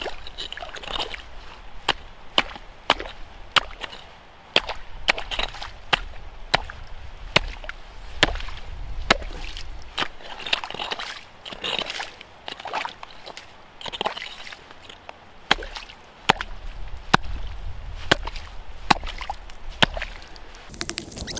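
Hatchet chopping into lake ice to open a fishing hole: a run of sharp blows at about two a second, with two short pauses.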